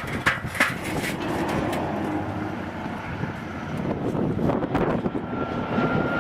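A machine running steadily, with a few sharp clicks in the first second and a thin steady whine coming in near the end.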